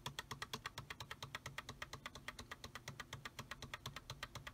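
Computer keyboard's F2 key tapped over and over in rapid, even clicks, about eight a second, to enter the Dell BIOS setup as the PC boots.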